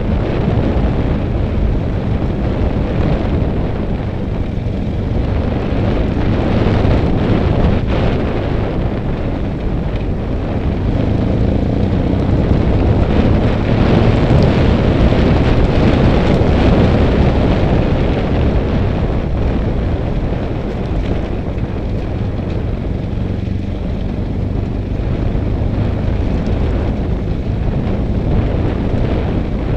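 BMW F800 GS motorcycle's parallel-twin engine running steadily at low riding speed, its level swelling and easing with the throttle, with wind buffeting on the microphone.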